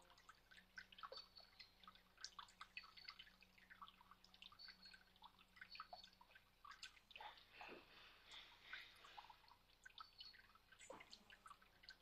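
Faint trickle and irregular dripping of a small garden fountain, its thin stream of water splashing into the bowl below.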